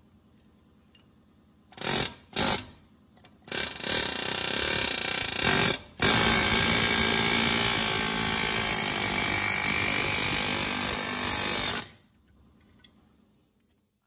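Pneumatic wrench on an air hose running against the rear wheel-hub mounting bolts. It gives two short blips about two seconds in, then a run of about two seconds, then a steady run of about six seconds that cuts off sharply.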